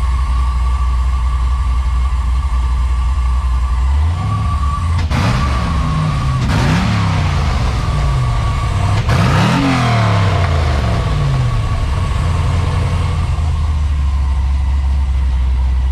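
LS V8 engine in a VW Beetle idling through Thrush turbo mufflers, blipped three times between about four and eleven seconds in, each rev rising and falling back, then settling to a steady idle.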